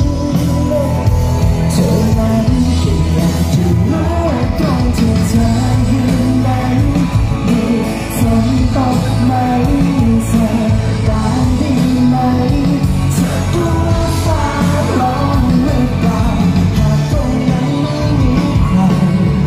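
Live pop music with a singer, played loud through a concert sound system, with heavy bass.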